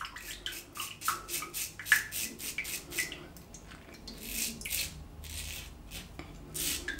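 Wilkinson Sword twist-to-open double-edge safety razor with a Dorco Titan blade scraping through lathered stubble on the neck, in a run of short quick strokes followed by a few longer, slower ones.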